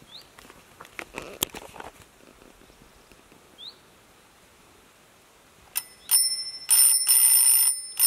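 A bell rung in loud bursts of about half a second to a second each, starting about six seconds in, sounding a morning wake-up call. Before it there are only a few faint knocks.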